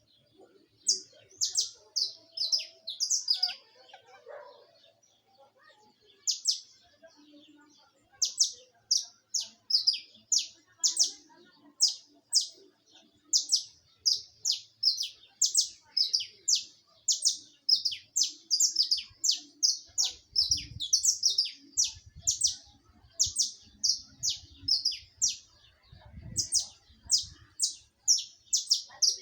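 Saffron finch (canário-da-terra) singing: a long series of short, high, downward-sweeping notes, about two to three a second, with a pause of a few seconds near the start and a brief break near the end.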